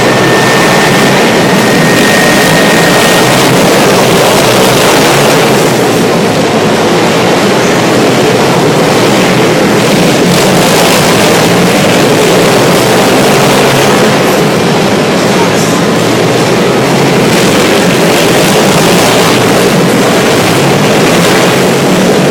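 Several ice-racing motorcycles running hard around the track, their engines merging into a loud, steady din.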